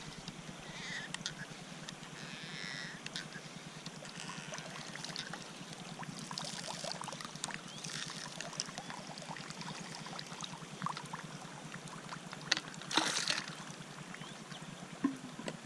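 Quiet river-bank ambience. A few bird calls come in the first seconds, then scattered small clicks from the hand-held water-filter pump being handled. Near the end there is a short splash of water as an open bottle is tipped over the river.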